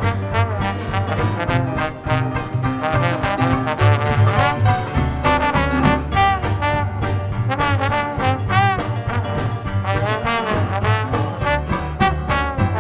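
Live Dixieland jazz band playing an instrumental chorus: horns weaving melodic lines with vibrato over a steady, driving rhythm section.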